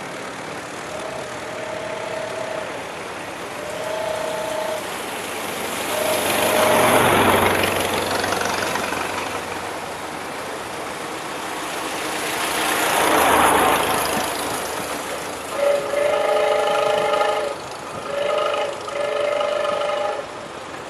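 Old cars driving past, two passes that swell and fade, about seven and thirteen seconds in. There are short steady horn toots in the first few seconds, and several longer horn blasts near the end.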